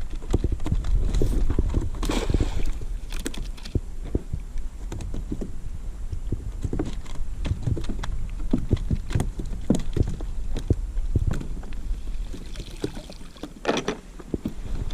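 Irregular knocks, taps and thumps on a plastic kayak as a cast net full of flapping mullet is handled aboard, over a steady low rumble.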